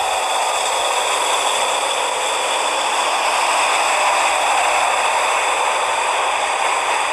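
N-gauge model of a JR Hokkaido KiHa 183 diesel railcar running along the layout track: a steady whirring hiss from its motor and wheels, a little louder about halfway through as it passes closest.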